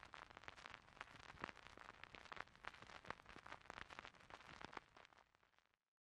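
Near silence with faint, irregular crackles and clicks scattered throughout, cutting off just before the end.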